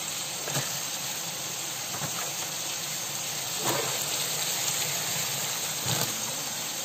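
Sliced shallots and green chillies frying in hot oil in a large pot: a steady sizzling hiss, with a few faint knocks.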